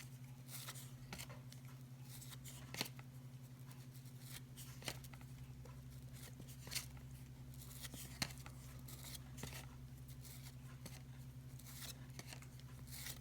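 Faint handling of paper trading cards from 1990 Fleer basketball packs: soft rustles and short clicks as cards are flipped and slid one off another, over a steady low hum.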